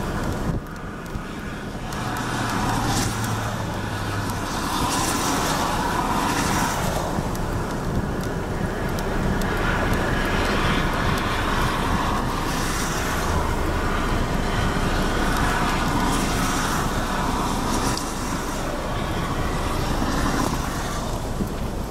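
A steady outdoor rushing noise that swells and eases every few seconds, with a faint low hum at times.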